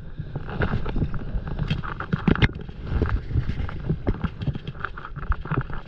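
Water splashing and slapping against an inflatable stand-up paddleboard as it is paddled, with many irregular knocks and clicks over a low rumble.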